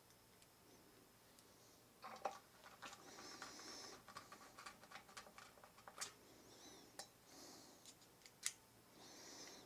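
Faint clicks and scraping of a small screwdriver turning the pickup-ring mounting screws of a humbucker back into a Les Paul's top, starting about two seconds in, with a few sharper single clicks.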